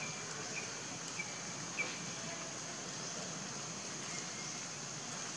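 Outdoor ambience: a steady high-pitched hiss, with four short high chirps in the first two seconds.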